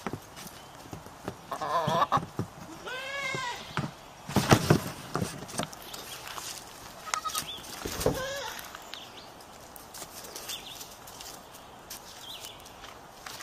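Young goat bleating a few times in short wavering calls while sparring with a hen, with a burst of scuffling thumps about four seconds in.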